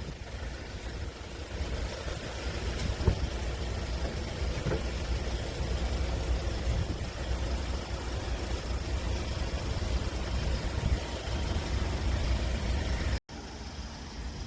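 An engine idling steadily as a low rumble, with a brief dropout near the end.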